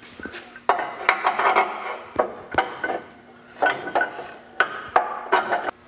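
Steel snow-plow mount bracket and its bolt hardware clanking and clinking against the truck frame as it is held up and fitted, in several separate bursts of metallic knocks with a brief ring.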